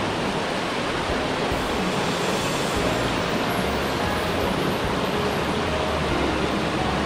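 Steady rushing of a fast-flowing mountain headwater stream, an even, unbroken noise of water.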